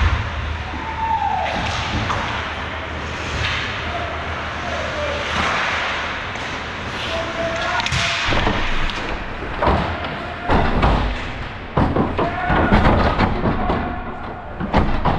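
Ice hockey play: a run of sharp thumps and clacks, coming thickest in the second half, from the puck, sticks and players hitting the boards and glass, over steady rink noise.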